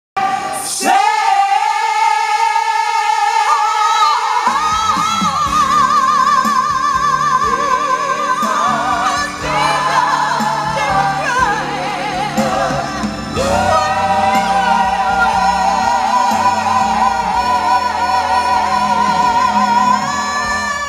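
Gospel choir singing through microphones and loudspeakers: long held notes with a wide vibrato. A few voices start about a second in, and fuller, lower parts join a few seconds later.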